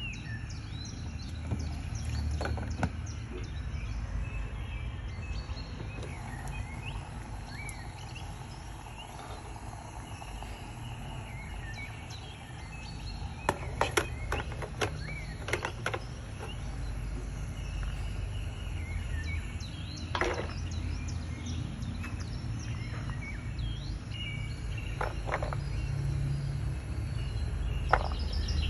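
Steady household background hum with faint bird chirps. A quick cluster of sharp plastic clicks about halfway through and a few single knocks later, as the plastic steamer basket is handled and vegetable cubes are dropped into it.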